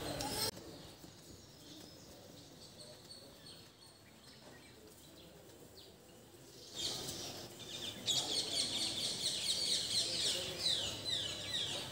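Many small birds chirping together: a dense run of short, quick, falling chirps that starts about seven seconds in, after a quiet stretch.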